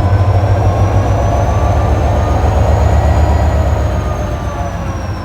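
GT22 diesel-electric locomotive's EMD two-stroke diesel engine running, a steady low drone with a faint high whine that rises through the first few seconds and then falls back.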